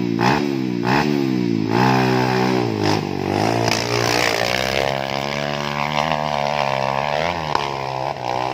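Dirt bike engine revving hard, first in quick blips about three a second, then held at high revs with the pitch climbing and wavering as the bike pulls up a steep dirt climb under load.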